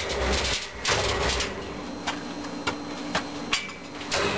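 Scattered metal knocks and clanks, about five over a few seconds, as a homemade welded steel forklift frame on small wheels is handled and rolled against the steel cage of a water tote, over a faint steady hum.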